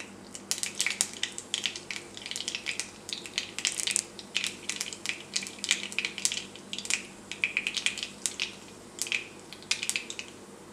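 Mustard seeds popping and spluttering in hot oil in a pan on low flame: irregular sharp pops, several a second. This is the tempering stage, where the seeds burst once the oil is hot enough.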